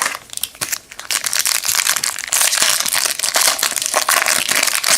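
Plastic wrapper of a trading-card pack crinkling as it is handled and opened, a dense crackle that grows louder from about two seconds in.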